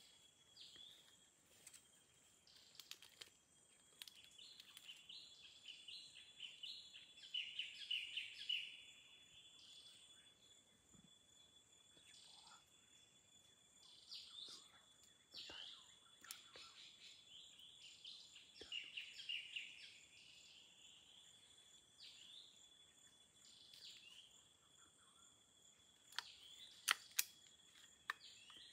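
Quiet forest ambience: bird chirps in short runs over a steady high-pitched whine, with a few sharp clicks near the end.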